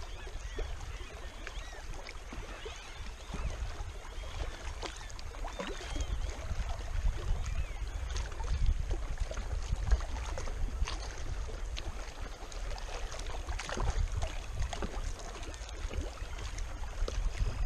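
Wind rumbling on the camera microphone over small waves lapping against shoreline rocks, with scattered faint ticks and clicks.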